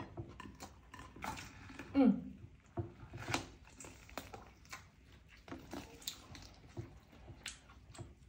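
Irregular clicks and knocks of handling, with a brief cry falling in pitch about two seconds in.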